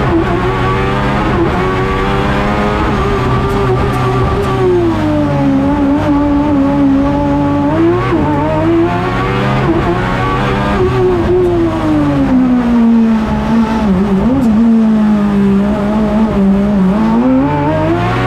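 Suzuki GSX-R 1000 inline-four motorcycle engine in a Fiat X1/9 race car, heard from inside the cockpit, running hard through the gears. Its pitch drops and climbs again several times as the driver shifts between first and third.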